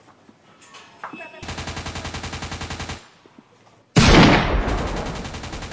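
Automatic gunfire sound effects, edited onto an actor's stick 'rifle'. A burst of rapid, evenly spaced shots lasts about a second and a half. After a short gap comes a louder burst that opens with a heavy blast and runs on as rapid fire.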